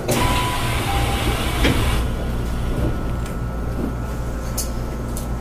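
Inside a Shizuoka Railway commuter train car standing at a station: a sudden hiss of air that fades over about two seconds, over the car's steady hum, with a few light clicks after it.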